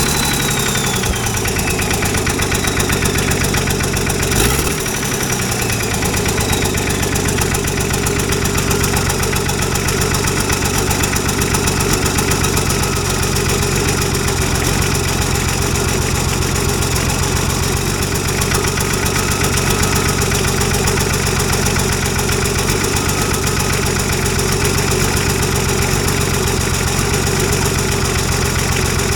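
Nissan RD28 straight-six diesel idling steadily with diesel clatter, freshly started, with a short blip of revs that falls away about four seconds in. It is running with a split injector line leaking fuel.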